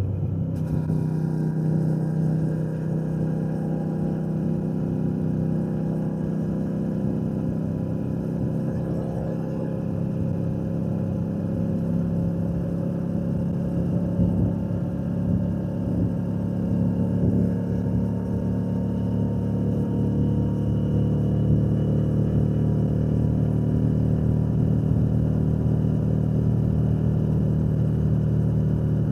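Royal Enfield Shotgun 650's parallel-twin engine and exhaust running steadily while riding, the note getting slightly louder in the second half.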